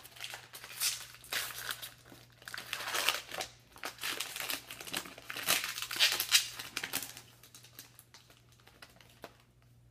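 Foil wrapper of a trading-card pack crinkling and crackling in irregular bursts as it is handled and pulled open by hand, thinning out and stopping near the end.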